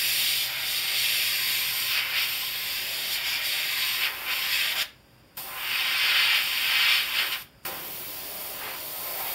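Airbrush spraying paint with a steady hiss that cuts off twice, briefly about five seconds in and again a couple of seconds later, and runs softer near the end.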